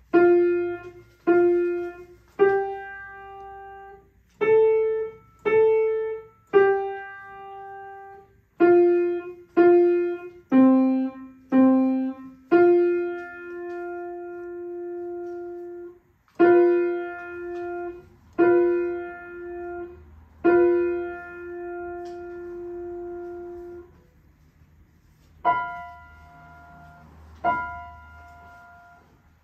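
Grand piano played slowly: a simple melody of single notes struck about a second apart, each ringing and fading, with a few notes held for several seconds. Near the end there is a short pause before two last notes.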